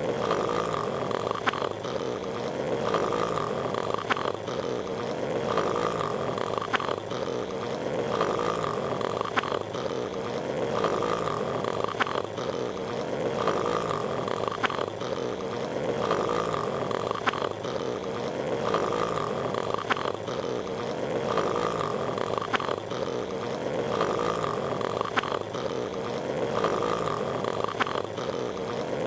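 Cartoon snoring of Patrick Star from SpongeBob SquarePants, a short snore cycle repeating about every second and a half as a steady loop.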